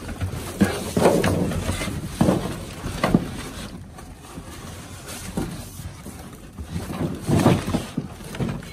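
Rummaging through trash in a dumpster: irregular rustling and crinkling of plastic bags and wrappers against cardboard, with scattered knocks, loudest about a second in and again near the end.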